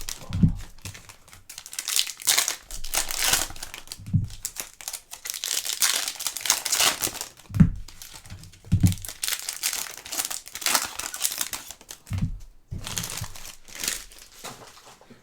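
Foil trading-card pack wrappers crinkling and tearing as packs are ripped open and handled, in irregular bursts, with a few soft thumps of packs or cards set down on the table.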